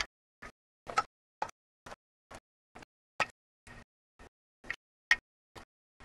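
The recording keeps cutting in and out, about twice a second: short snippets of faint room sound, each separated by dead silence.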